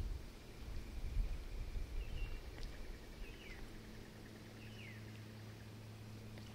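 Quiet lakeside bush ambience. An uneven low rumble fades over the first three seconds, a bird gives a few short chirps that drop in pitch around the middle, and a faint steady low hum sets in during the second half.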